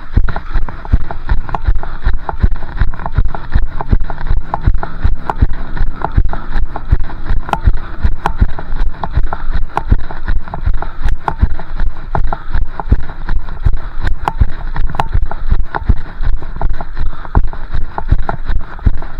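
A runner's footfalls on a wet, slushy road, thudding in a steady rhythm, heard through a chest-strapped camera that jostles with each stride, over a low rumble of wind and movement noise on the microphone.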